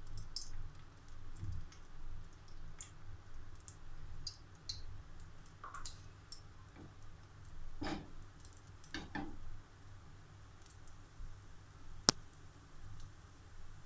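Hot ghee crackling under chocolate pancake batter in a nonstick frying pan: scattered faint pops and clicks. One sharp click stands out near the end.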